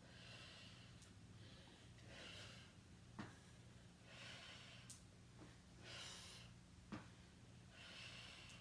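Faint breathing of a woman exercising: a breath about every two seconds, in time with glute bridge crunches, with a couple of soft clicks and a low steady hum underneath.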